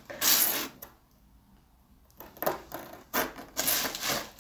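Cardboard box being opened and rummaged through by hand: rustling and scraping of the flaps and the packing inside, in two spells with a pause of about a second between them.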